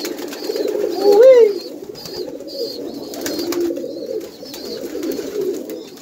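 Several domestic pigeons cooing continuously in their loft. One louder, rising-and-falling coo comes about a second in.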